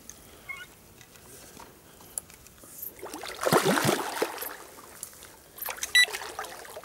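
Water splashing and trickling, loudest about three and a half seconds in, then a short high beep near the end.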